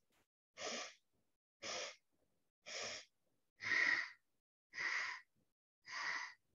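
A woman's short, sharp breaths through the nose in segmented pranayama breathing: six separate breaths about a second apart, each a brief hiss.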